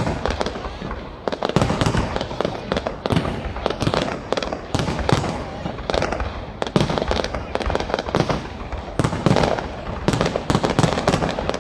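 Aerial fireworks bursting in a rapid, unbroken barrage of sharp bangs and crackles, with people's voices underneath.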